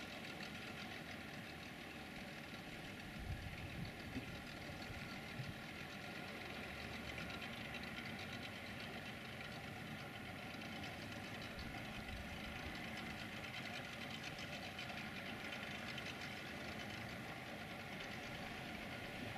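Faint, steady engine drone from a small outboard motorboat crossing the harbour, with a few brief low bumps about three to five seconds in.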